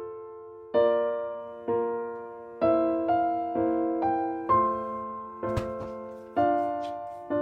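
Slow, gentle background piano music: chords struck about once a second and left to ring out. A few faint clicks come about two-thirds of the way through.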